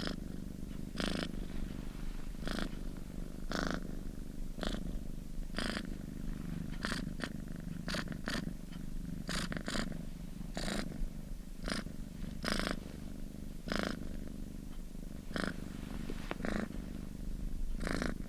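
Domestic cat purring continuously, a low steady rumble with a short breathy rasp about once a second as it breathes in and out.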